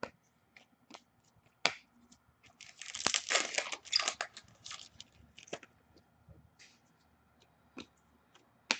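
Foil wrapper of a trading card pack torn open and crinkling for about two and a half seconds, with scattered light clicks and snaps of cards being handled before and after.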